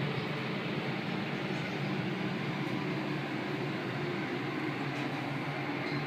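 Steady, even hum of a fan running in a homemade air conditioner, with no change in speed.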